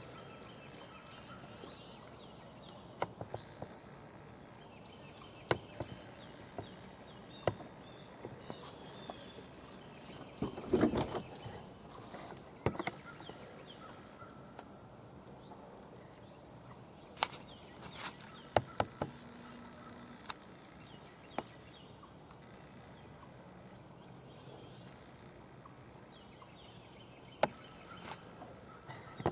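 Faint outdoor field ambience with sporadic short, high bird chirps and scattered sharp clicks, and a brief louder rough burst of noise about eleven seconds in.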